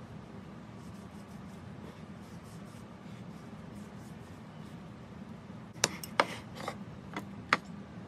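Kitchen utensils knocking and clinking against cookware: light scraping ticks at first, then five sharp clinks in quick succession near the end, over a steady low hum.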